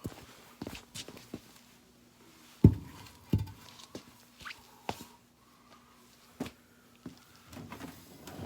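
Scattered knocks, clunks and scrapes from a washing machine being shifted and levered by hand. The two loudest thumps come a little under three seconds in and again about half a second later.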